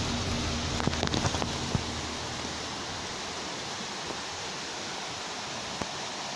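Steady rushing hiss of forest ambience, with a handful of sharp snaps and rustles of branches and undergrowth about a second in as people push through dense brush.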